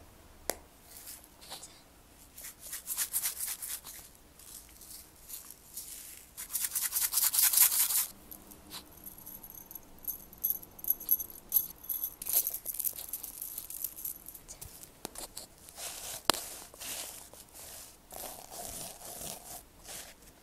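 Close-miked ASMR trigger sounds made with handheld objects: a paddle hairbrush's bristles scratched in repeated strokes, a loud dense rubbing a few seconds later, then a faint high ringing, a sharp click, and scratchy rubbing near the end as a sequin-covered notebook is handled.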